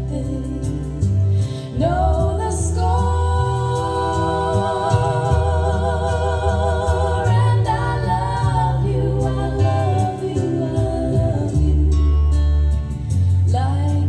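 Recorded song played back over hi-fi loudspeakers: a woman singing a slow ballad with a wavering vibrato over sustained bass notes and soft accompaniment. The voice comes in about two seconds in and pauses briefly near the end.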